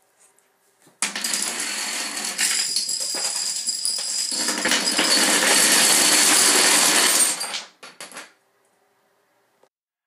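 Dominoes toppling and a stacked domino tower collapsing onto a wooden shelf: a dense clatter of many small pieces that starts suddenly about a second in, grows louder past the middle, then dies away in a few last clicks.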